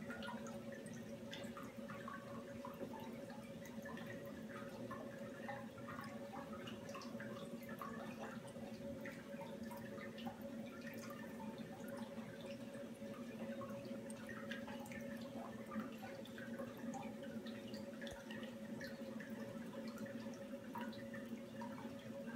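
Lavender distillate (hydrosol carrying essential oil) dripping from the still's condenser outlet into a glass oil separator during steam distillation: quick, irregular plinks over a steady low hum.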